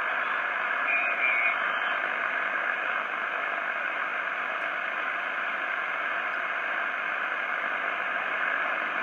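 Steady band noise hissing from the speaker of a homemade 80-metre QRP transceiver in lower-sideband mode as its tuning knob is turned between stations, with a faint brief whistle about a second in.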